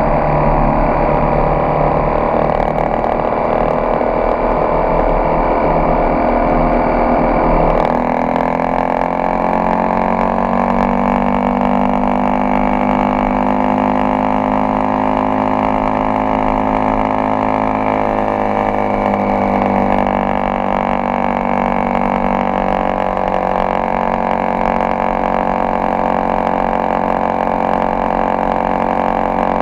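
Honda XRE 300's single-cylinder engine running while the motorcycle is ridden, a steady drone whose pitch slowly rises and then eases back down partway through.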